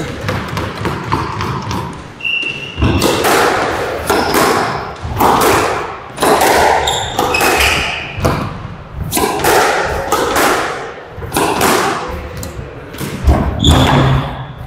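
A squash rally: the ball struck by rackets and smacking off the court walls about once a second, each hit echoing in the court, with a few short squeaks between hits.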